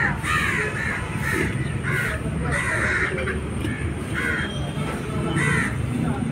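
Crows cawing repeatedly, about a dozen short harsh calls, over a steady low background rumble.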